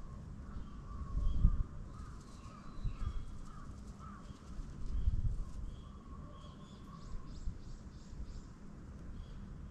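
Birds calling at dawn: short repeated chirps from small birds, over a lower wavering call through the first half. Low rumbles about a second and a half in and again around five seconds are the loudest sounds.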